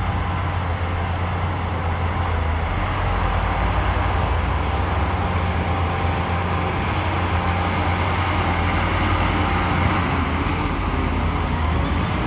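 Heavy diesel earthmoving machinery running steadily, with a deep engine drone and a broad mechanical rumble.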